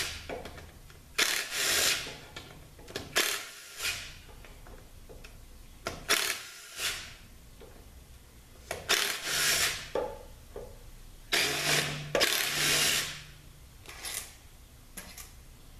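A handheld power tool run in repeated short bursts, each under about a second, backing out the aluminium pump bolts of a ZF 8HP70 eight-speed automatic transmission.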